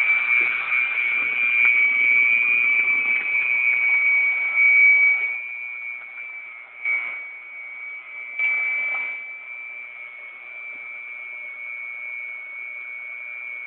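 Small electric kitchen mixer motor whining steadily at high speed while churning a batter mixture. It is louder for the first five seconds or so, then runs more quietly, with two brief louder swells about seven and nine seconds in.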